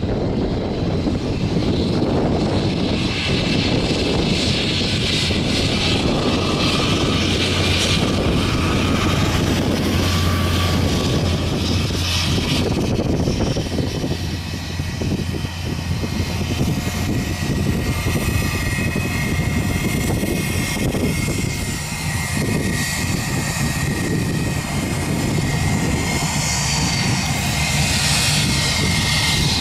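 Airbus A320-family airliner taxiing past on its twin jet engines, a steady loud rush. A high engine whine grows clearer in the second half.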